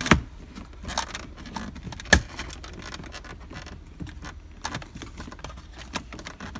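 Clicks, knocks and light rattles of hands working plastic interior trim with a plastic pry tool and handling tools in a plastic console cupholder. Two sharper clicks stand out, near the start and about two seconds in.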